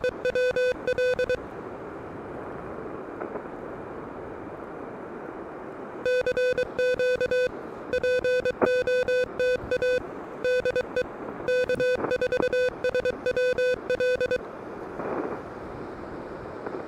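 Elecraft KH1 transceiver sounding Morse code: a single steady tone keyed on and off in dots and dashes, in two runs with a few seconds of receiver band hiss between them.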